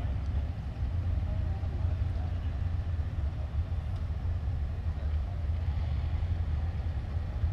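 Steady low rumble of drag cars running in the background at a dragstrip, with faint distant voices over it.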